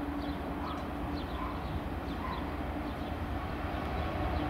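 Irish Rail Class 201 diesel locomotive, an EMD two-stroke V12, approaching at the head of a train: a steady low engine drone growing slowly louder. A run of short high bird chirps sounds over it in the first half.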